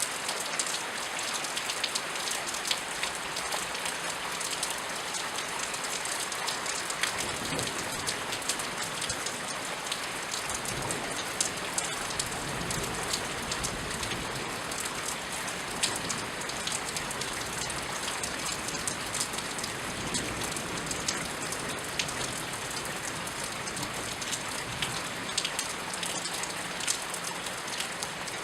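Steady rain falling, with many separate drops striking close by. A low rumble sits underneath from about seven seconds in and fades out some way past the middle.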